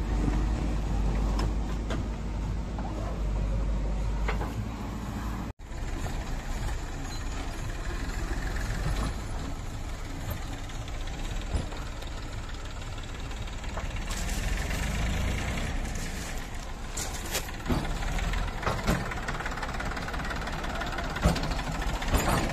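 Diesel machinery running steadily while soil is dumped: first a JCB 3DX backhoe loader emptying its raised front bucket, then, after a brief cut about five and a half seconds in, a Massey Ferguson tractor running as its hydraulic tipping trolley unloads. Scattered sharp knocks come in the second half.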